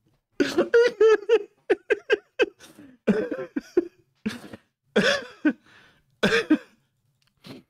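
A man laughing hard in a string of short bursts for about six seconds.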